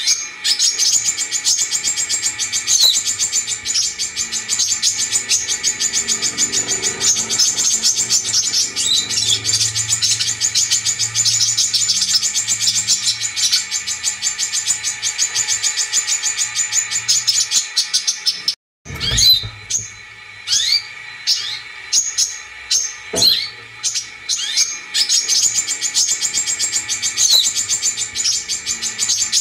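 Brown-throated sunbird song on a lure recording: a long, fast, very high chattering trill that breaks off about two-thirds of the way through. Separate sharp, falling call notes follow, then the trill starts again near the end.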